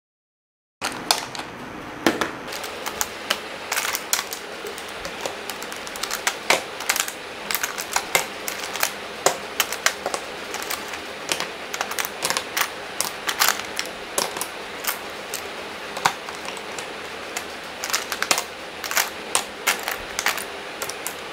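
Makeup brushes being dropped and set one by one into an organizer, making many light, irregular clicks and taps over a faint steady hiss. The sound starts after about a second of dead silence.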